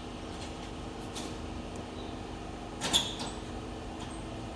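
A steady background hum, with a few light clicks about a second in and one sharp knock about three seconds in.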